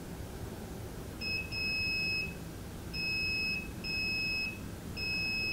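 Digital multimeter's continuity beeper: a short chirp, then four steady high beeps of about three-quarters of a second each as the test probes are touched across the starter motor's brush and commutator connections. Each beep signals a closed circuit between the probe points.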